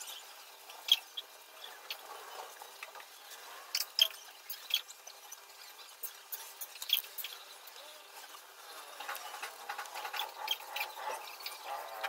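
Aluminium foil crinkling and crackling as it is pressed and smoothed onto a glued cardboard ring. There are scattered sharp crackles, a few of them loud, then denser crinkling in the last few seconds.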